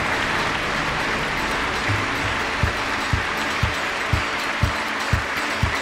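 Audience applauding. About two and a half seconds in, music with a steady low beat comes in, about two thumps a second.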